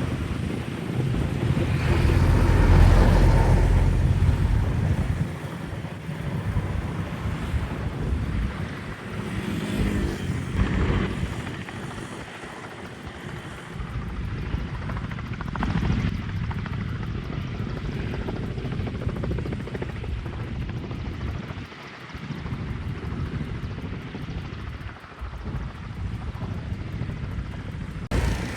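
Low aircraft rumble under heavy wind buffeting the microphone, swelling loudest a few seconds in and then rising and falling unevenly.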